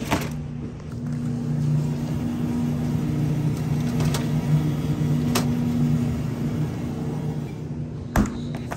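Shopping cart rolling over a smooth store floor: a steady low rumble with a hum, and a few sharp clicks and rattles from the wire basket.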